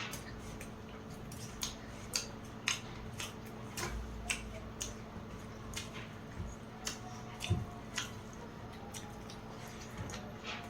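Close-up eating sounds during a meal: chewing, with irregular short sharp clicks about every half second from eating at the plate, over a steady low hum.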